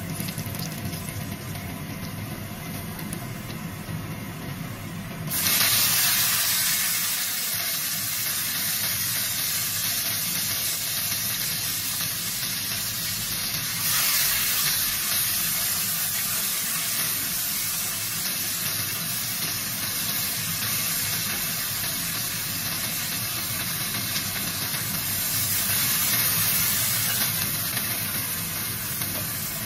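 Tofu and garlic sizzling in oil in a hot nonstick wok: a steady hiss that jumps sharply louder about five seconds in and swells again around the middle as oyster sauce hits the pan.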